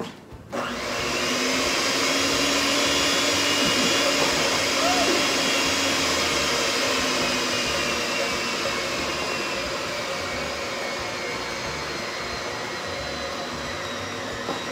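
Electric stand mixer running steadily, its motor switched on about half a second in, beating flour, milk and butter into dough; it stops at the very end.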